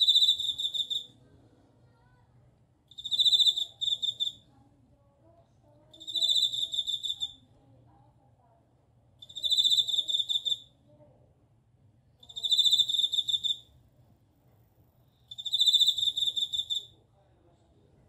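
Male Japanese bell cricket (suzumushi) singing by rubbing its raised forewings: six ringing, high-pitched trilled chirps, each about a second long, repeating roughly every three seconds.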